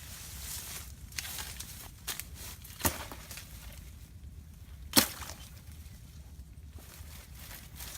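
Rustling outdoor handling noise broken by a few sharp clicks or snaps, the loudest two about three and five seconds in.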